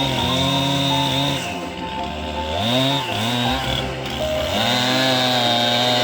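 Chainsaw engine running at high revs, its pitch dipping twice around the middle and climbing back up before holding steady again.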